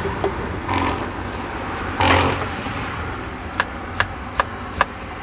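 Road traffic passing with a steady rush and a louder swell about two seconds in. In the second half comes a run of sharp taps, about two or three a second.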